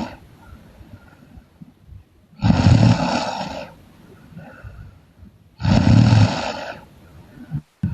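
A sleeping person snoring loudly: two long snores about three seconds apart, each lasting a little over a second, with faint breathing between them.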